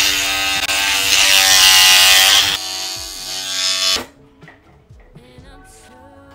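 Electric toothbrush buzzing during brushing, loud for the first two and a half seconds, then quieter until it stops about four seconds in.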